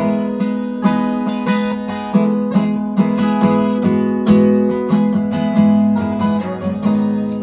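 Acoustic guitar being strummed, with chords ringing in a steady rhythm through an instrumental passage of a song.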